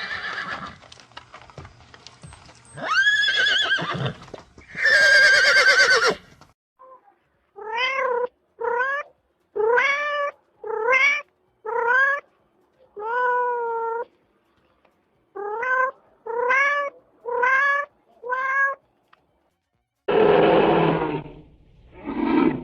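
A cat meowing: about ten short meows, each rising slightly, in a steady run through the middle. Two longer pitched animal calls come before it, and a rough, low animal call begins near the end.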